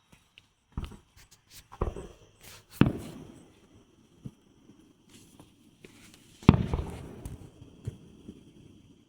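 Aerial fireworks bursting: a series of sharp booms, each with a rolling rumble after it, the loudest about three seconds in and again a little past six seconds. Crickets chirp steadily underneath.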